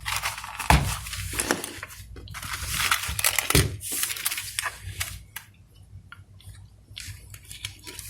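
Rummaging through small tools while looking for a small screwdriver: irregular rustling and scraping with scattered light clicks and knocks, busier in the first half and fainter later.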